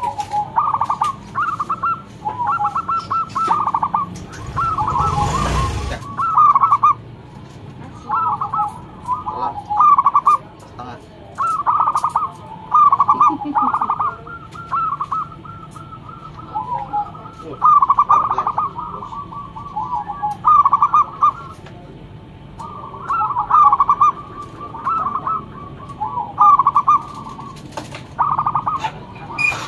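Zebra dove (perkutut) singing: short phrases of rapid stuttering coos, repeated over and over with gaps of about a second. A brief rushing noise comes about five seconds in.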